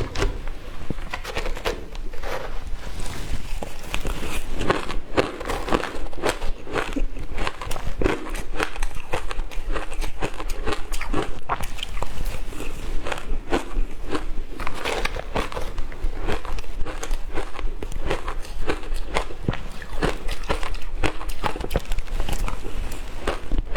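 Shaved ice topped with matcha and milk powder being bitten and chewed, a dense run of crisp crunches, several a second, without a break.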